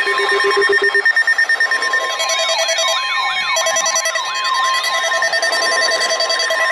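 Several emergency alert tones sounding at once: a steady alert tone, fast beeping in the first second, and from about two seconds in, repeating sweeping up-and-down tones, about three a second.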